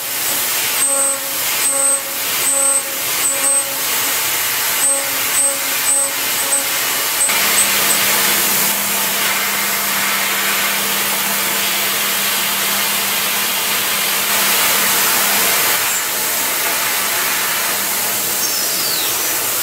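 CNC milling machine cutting metal: a pitched whine from the spindle and tool that comes and goes in short bursts, then, after about seven seconds, gives way to a steady hiss with a constant low hum.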